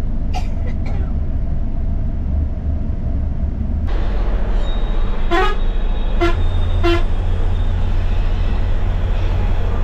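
Bus on the move with a steady low engine and road rumble; from about five seconds in, a vehicle horn sounds three short toots in quick succession over louder road noise.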